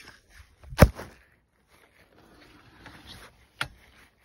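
Phone being handled, with rustling on its microphone: a sharp knock about a second in, the loudest sound, and a lighter knock near the end.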